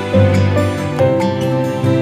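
Background music: a slow, gentle instrumental with held notes, a new note coming in about once a second.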